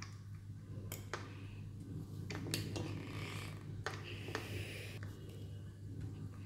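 Small sharp clicks and scratchy scraping from a precision screwdriver and fingers working the screws and metal head-actuator arm of an opened hard disk drive, over a steady low hum.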